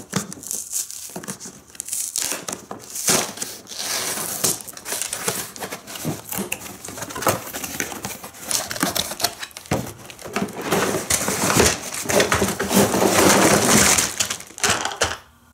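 Cardboard toy box being opened by hand: the end flap pulled open and the cardboard packing slid out, then plastic playset pieces and plastic-bagged parts crinkling and clattering as they are lifted out. The handling gets loudest near the end.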